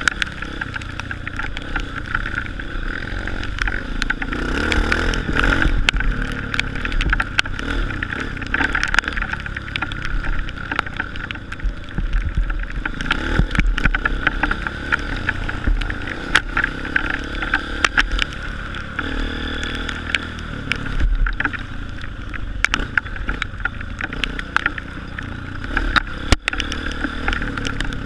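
Honda CRF230 dirt bike's single-cylinder four-stroke engine running and revving up and down as it is ridden over a muddy trail, heard through a GoPro Hero 3, with frequent sharp knocks and clicks from the bumps.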